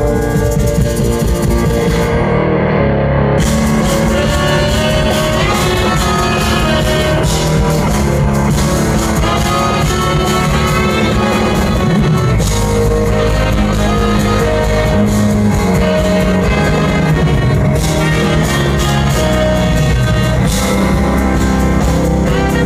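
Jazz-fusion band playing live through a PA: drums, bass and electric guitar with tenor saxophone and trumpet.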